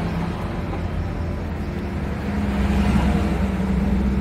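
Steady drone of a motor vehicle engine running, growing louder a little over two seconds in.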